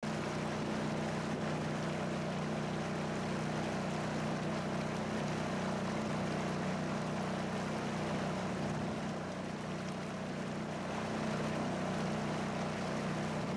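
Small outboard motor on a boat running at a steady speed: a constant drone that does not change in pitch.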